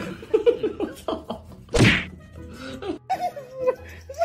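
A single loud whack about two seconds in, amid short pitched vocal sounds.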